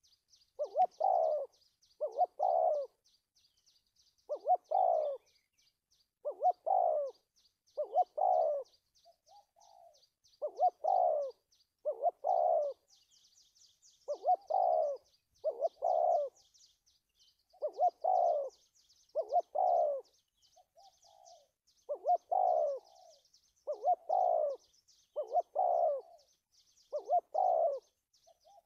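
Spotted dove cooing over and over in short stammering phrases of two or three notes, one phrase every second and a half to two seconds. A faint, fast, high chirping runs underneath.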